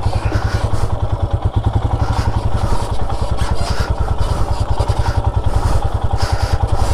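Motorcycle engine running with an even, rapid pulse as the bike is ridden down a rocky dirt trail.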